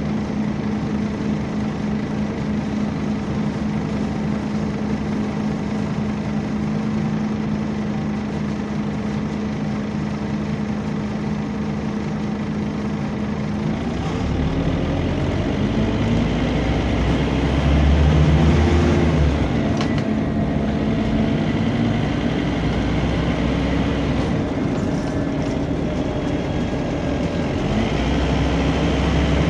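Scania double-decker bus heard from inside: the engine idles with a steady hum while the cooling fan runs, then about halfway through the engine revs up and the bus pulls away, its pitch rising through the gears, loudest a few seconds after moving off and rising again near the end.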